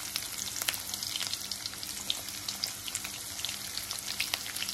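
Chopped garlic and green chilli, with cumin and fenugreek seeds, sizzling in hot mustard oil in a kadhai: a steady hiss full of small crackles and pops. This is the tempering (tadka) stage, the garlic being left to brown.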